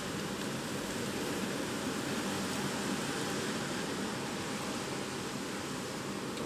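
Typhoon wind and rain: a steady, even rush of noise that neither swells nor stops.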